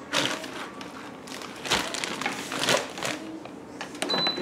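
Black inner cooking pot being set down and shifted in an Instant Pot multicooker's stainless base: a series of light knocks and scrapes. Near the end comes a short high beep from the cooker's control panel.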